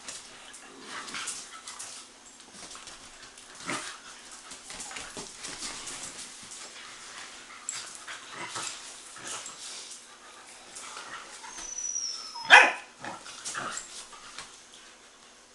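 Young dogs play-fighting, with irregular barks, yips and scuffling throughout and one loud, sharp bark about three-quarters of the way through.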